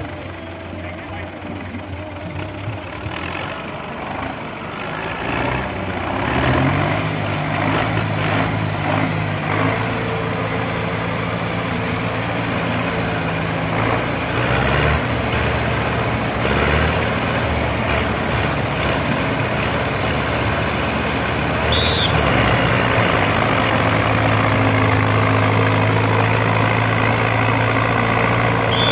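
Farm tractor engines working hard under load as two tractors pull against each other in a tractor tug-of-war. The engines pick up about six seconds in, then run loud and steady, louder again in the last several seconds.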